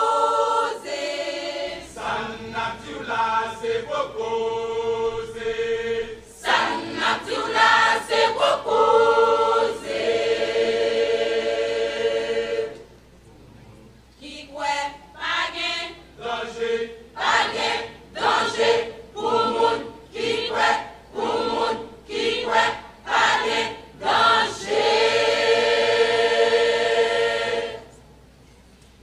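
Church choir singing, its phrases ending on long held chords, with a brief pause between phrases about halfway through and another near the end.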